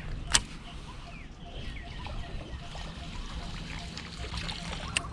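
Water trickling and lapping around a fishing kayak, with one sharp knock about a third of a second in and another near the end.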